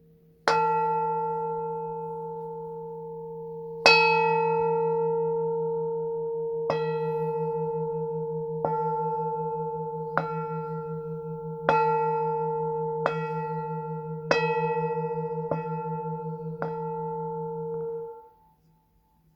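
Plain hand-hammered bowl-shaped (jubal) singing bowl struck with its stick about ten times, the strikes coming closer together. Each strike adds to a long layered ring with a slow pulsing beat in the low tone. Near the end the ring cuts off suddenly.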